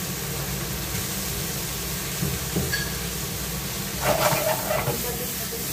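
Shrimp frying in oil in a pan, a steady sizzling hiss, with a brief louder clatter about four seconds in as the pan is handled.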